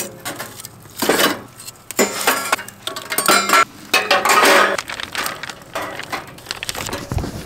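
Metal clinking and clattering in several separate bursts: steel tongs knocking lumps of charcoal about in a steel box grill, and a wire grill grate set down on the grill.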